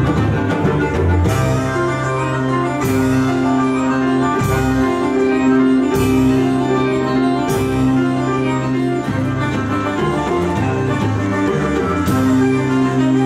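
Instrumental ensemble music: sustained keyboard chords over held bass notes, with a percussion hit about every second and a half.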